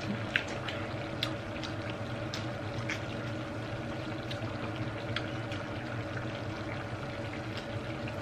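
Coconut-milk seafood stew simmering in a pan on a tabletop hot plate: a steady bubbling hiss. Scattered small clicks and smacks of chewing and eating crab by hand sound over it.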